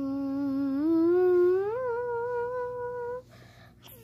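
A child's voice humming one long wordless note of a song melody. About a second in it slides up about an octave, holds, and stops a little after three seconds.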